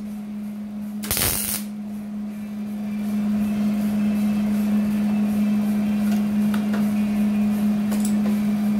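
MIG welder laying a short tack weld on thin rocker-panel sheet metal: a half-second crackling burst about a second in, over a steady low hum.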